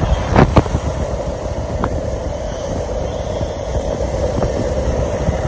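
Vehicle engine running steadily with road rumble, with two short knocks about half a second in.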